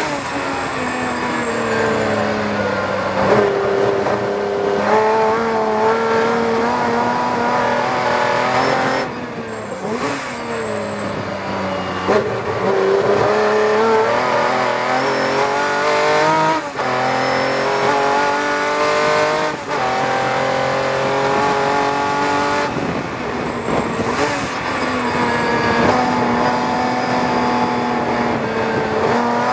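Tojeiro Jaguar's Jaguar XK straight-six racing engine heard from the open cockpit at full race speed, climbing in pitch and dropping at each of several upshifts. About a third of the way in the engine eases off under braking, then pulls hard again, with wind rushing past throughout.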